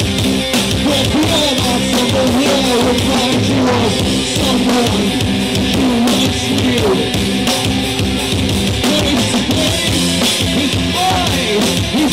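Live rock band playing loudly: drum kit, electric guitars and bass through the stage amplification.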